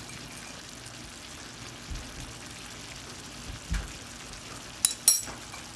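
Egg masala sizzling steadily in a pan of hot oil, with two soft knocks and then two sharp clicks near the end.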